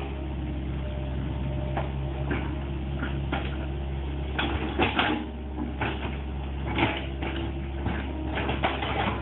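Excavator's diesel engine running steadily, with a series of short clanks and knocks.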